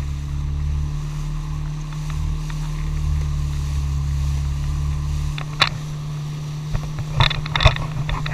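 Jet ski engine running steadily with a low drone. About five seconds in the deepest part of the drone drops away, and several sudden sharp hits follow.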